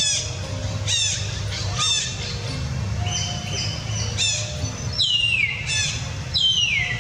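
High-pitched animal calls: a rapid series of short falling chirps, then two longer squeals that slide steadily down in pitch in the last two seconds.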